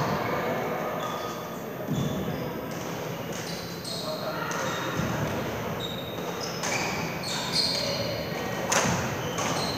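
Badminton hall sounds with plenty of echo: shoes squeaking on the court floor in short, high chirps, a few sharp racket hits on the shuttlecock, and indistinct voices in the background.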